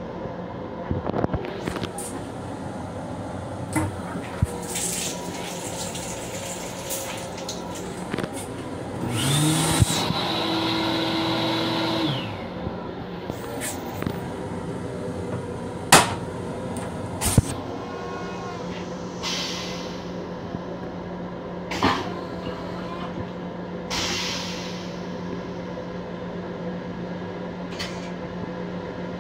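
LIRR M7 railcar toilet flushing about nine seconds in: a rising whine with a rush of air and water lasting about three seconds, over the steady hum of the train car. A few sharp clicks follow later.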